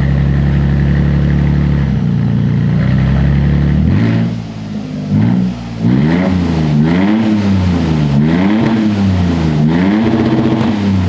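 2022 Toyota Tundra twin-turbo V6 running straight-piped with its cat-back exhaust removed: it idles steadily, then from about four seconds in is revved up and let fall again and again, about once a second.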